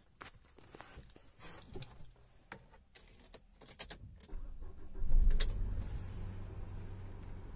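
Keys clicking and jangling at the ignition, then about four seconds in a car engine cranks and starts with a brief loud burst and settles into a steady idle.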